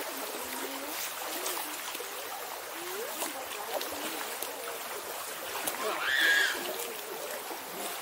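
Steady rush of stream water, with faint voices talking underneath and a brief high-pitched call about six seconds in.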